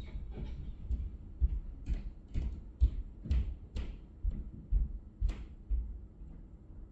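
Heavy footsteps stomping and running on the floor above, heard through the ceiling as a quick series of low thuds, about two a second, some with a sharper knock.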